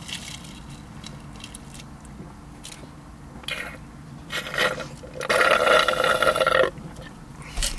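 A person drinking noisily from a cup: a couple of short sips, then one long, loud slurp lasting about a second and a half, a little past halfway.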